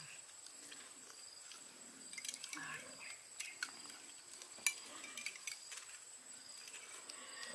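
Scattered light clinks of glassware and utensils, with a few faint, short vocal sounds.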